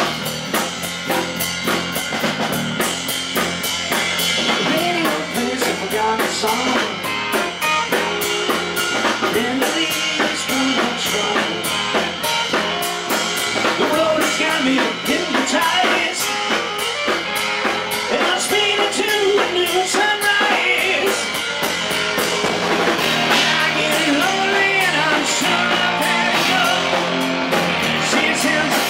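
Live rock band playing loud electric guitar and drum kit, picked up on stage from the amps and monitors, with a man singing lead from a few seconds in.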